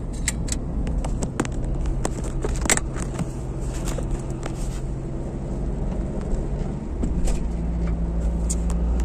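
Car interior while driving on a highway: steady engine and road rumble, with many scattered sharp taps. The engine's hum changes pitch about seven seconds in.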